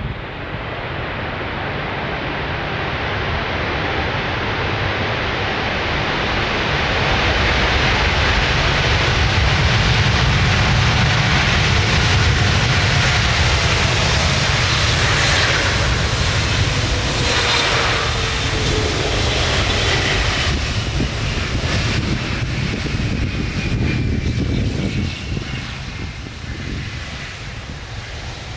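Jet airliner passing close by on approach. Its engine noise builds to a peak about ten seconds in, then fades with a whine that falls in pitch as it moves away.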